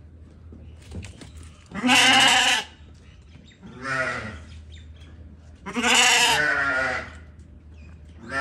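Afghan lamb bleating three times, each call with a wavering pitch: a loud bleat about two seconds in, a shorter, fainter one at about four seconds, and a longer loud one around six seconds.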